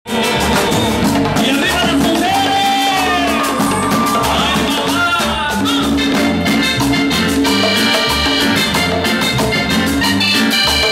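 Loud Latin dance music over a club sound system, with a steady repeating bass line and a busy upper melody.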